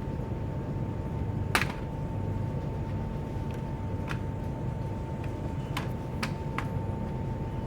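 A few small, sharp plastic clicks from laptop parts being handled and unlatched during a teardown, the loudest about a second and a half in, the rest spread through the second half. Under them runs a steady low hum with a faint high whine.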